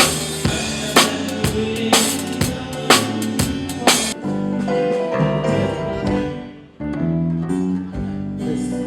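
A band playing a short run-through during a sound check. A drum kit beats out a rhythm with kick and snare over pitched instruments, then stops about four seconds in, leaving held instrumental notes.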